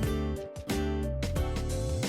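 Background music: a light, cheerful tune with plucked guitar-like notes over a steady bass line.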